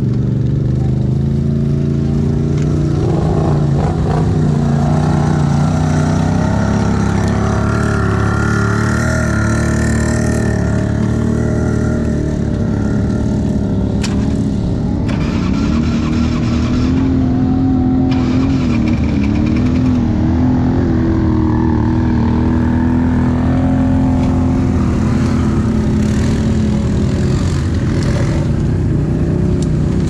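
Can-Am ATV engine running steadily while riding, its pitch drifting up and down with the throttle.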